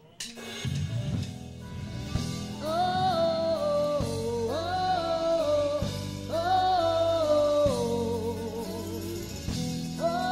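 A live band with drum kit and electric guitars starts playing. About two and a half seconds in, a woman's voice comes in singing long, held phrases with vibrato, in a slow song.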